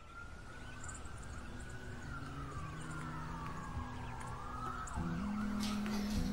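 Emergency-vehicle siren wailing over a low rumble of city traffic, its pitch rising slowly and then gliding down; the sound fades in from silence at the start.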